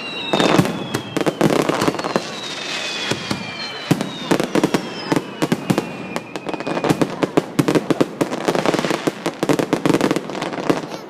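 Fireworks going off: a dense run of bangs and crackling, with several whistles gliding slowly down in pitch during the first half.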